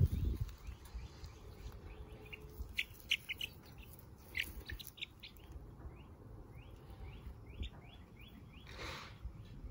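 Young chicks peeping: a run of short, rising chirps, several at a time, with a brief burst of noise near the end.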